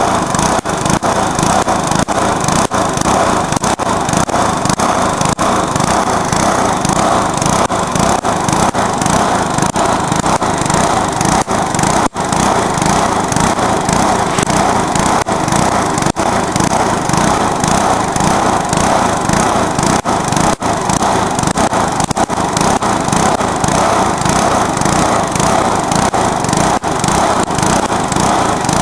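Briggs & Stratton lawnmower engine with its exhaust broken off, running loud and continuous, being run hard on purpose until it blows. It holds steady throughout apart from a few brief dips.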